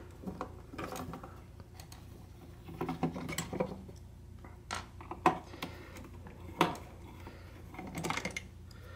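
Screwdriver working screws out of a radio's plastic casing: scattered sharp clicks and short scrapes of the tool and screws against plastic, over a faint steady low hum.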